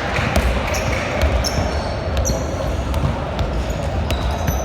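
Indoor basketball game: a ball bouncing and sneakers squeaking on the court in short high chirps over a steady din of voices in a large hall.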